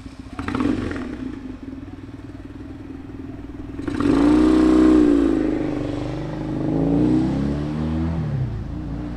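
Kawasaki KZ440 parallel-twin motorcycle engine running under way. About four seconds in it revs up sharply, its pitch rising and then sinking, and it rises and falls once more near the end.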